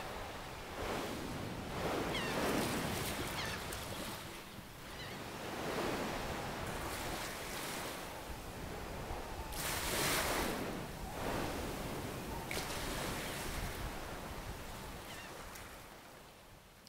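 Waves washing in on a shore, swelling and falling away several times, then fading out near the end.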